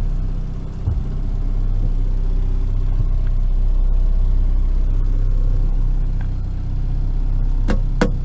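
Boat engine running steadily at trolling speed, a low drone. Three sharp knocks in quick succession near the end.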